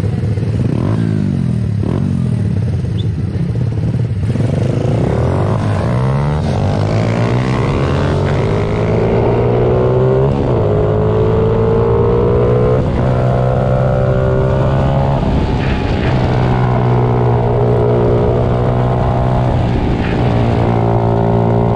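Several 90 cc pit bike engines revving and accelerating together in overlapping rising sweeps of pitch. The pitch repeatedly falls back and climbs again as the riders shift up through the gears.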